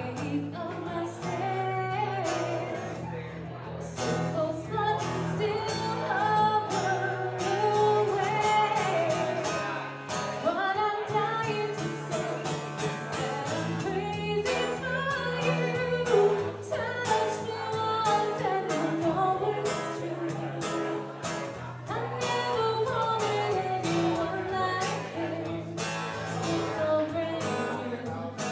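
A woman singing a ballad into a microphone, accompanied by a strummed acoustic guitar.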